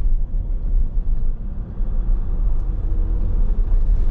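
Inside the cabin of a 2021 Jeep Wrangler Unlimited Rubicon EcoDiesel on the move: a steady low rumble of road and drivetrain noise.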